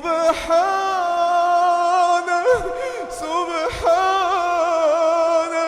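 A man reciting the Quran in a melodic, chanted style, drawing out long ornamented notes that waver in pitch, with two brief breaks for breath.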